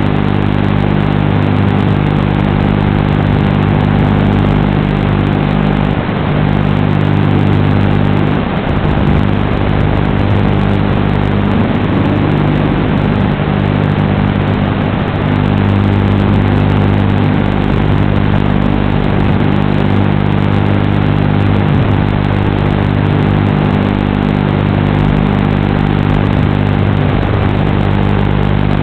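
FPV racing quadcopter's electric motors and propellers running in flight, a steady multi-tone buzz through the narrow-band onboard audio, with brief swings in pitch around the middle as the throttle changes.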